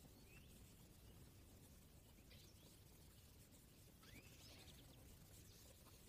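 Faint, sparse European goldfinch calls: a few short rising chirps, with a small cluster about four seconds in, over a steady hiss.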